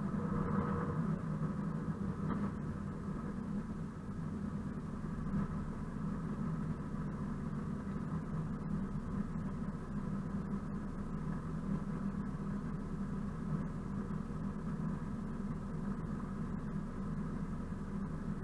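Diesel engine of a class 742 (ČKD T466.2) diesel-electric locomotive running steadily with an even low hum while the locomotive moves slowly.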